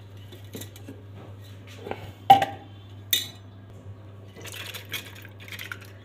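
Stainless steel kitchenware clinking: a spoon knocking against a steel pot and bowl, with a few sharp clinks about two and three seconds in. Near the end, curry being poured and scraped from a steel pot into a steel bowl, over a low steady hum.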